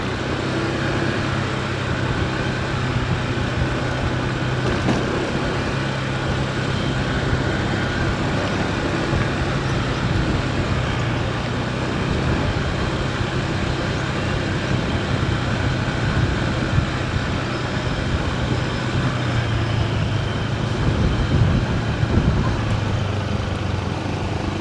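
Vehicle engine running steadily with road and traffic noise, a low even hum under a broad rush.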